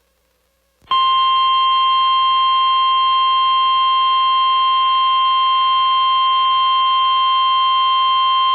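Emergency Alert System attention signal: a loud, steady, single-pitch alarm tone that starts about a second in after a short silence, the signal that a severe thunderstorm warning message is about to be read.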